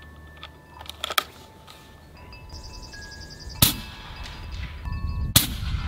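Umarex Gauntlet 30 (.30-calibre PCP air rifle) with a moderator firing a boat-tail slug: a few light clicks about a second in, then one sharp shot about three and a half seconds in, followed by another sharp crack near the end. Faint wind chimes ring in the background.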